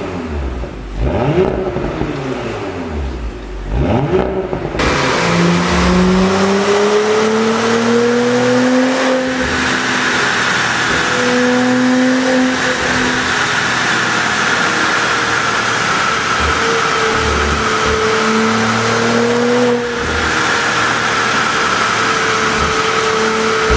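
Audi A7 55 TFSI's turbocharged V6 being revved three times, each rev rising and falling. Then the car is driven at a steady pace, the engine note drifting slowly up and down under tyre and wind noise.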